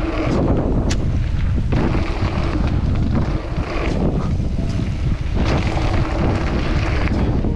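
Loud, steady wind buffeting on the microphone, with a few sharp knocks through it.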